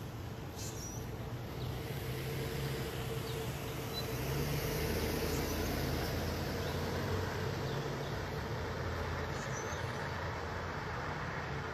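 A motor vehicle's engine running with a low hum, growing louder about four seconds in and easing off near the end, with a few faint bird chirps.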